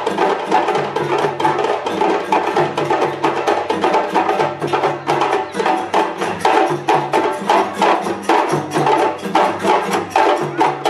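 Djembe drum ensemble playing a fast, steady rhythm in unison, with a low bass line of held notes running underneath.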